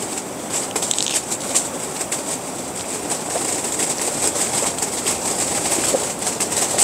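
Strong gusty wind buffeting an Octagon Vanta pop-up tent, its fabric flapping and rattling in quick irregular slaps over a steady rush of wind.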